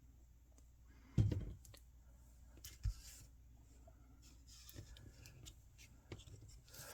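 Small paper pieces being handled and pressed into place with tweezers: faint scattered clicks and paper rustles, with a soft thump about a second in and a brief knock near three seconds.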